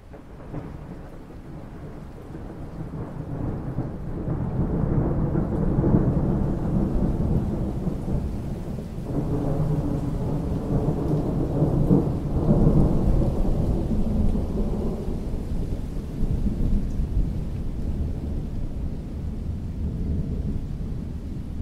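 Long roll of thunder over rain falling on a pool: a low rumble that builds over the first few seconds, swells twice, about a quarter and about halfway through, then slowly dies away.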